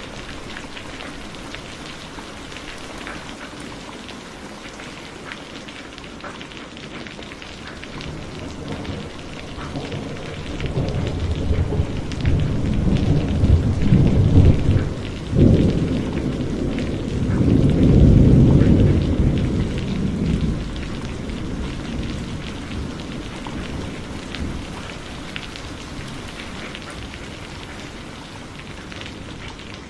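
Heavy rain falling steadily, with a long rolling thunder rumble that builds about ten seconds in, peaks twice and fades away over the following several seconds.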